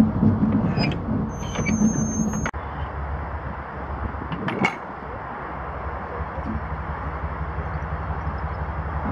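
Class 70 diesel locomotive running slowly, its engine giving a steady low rumble. A thin, high-pitched squeal is heard from about one and a half seconds in, typical of wheels or brakes on the rails. The engine's pulsing note drops away suddenly about two and a half seconds in, leaving a quieter steady rumble with a sharp click near the middle.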